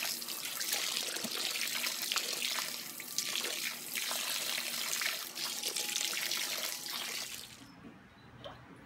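A jet of water from a garden hose pouring and splashing into a shallow inflatable pool and onto a child lying in it, a steady rushing splash. It drops away suddenly about seven and a half seconds in.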